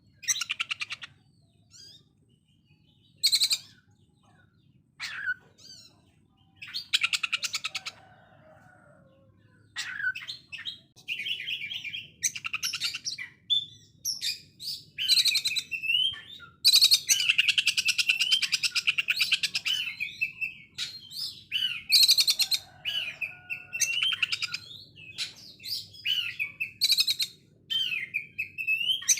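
Oriental magpie-robin singing a harsh 'konslet' song. Fast, rasping rattles like a sewing machine are mixed with whistled and gliding notes. It comes in short separate bursts at first, and from about ten seconds in it becomes a nearly continuous, loud stream of rattles and whistles.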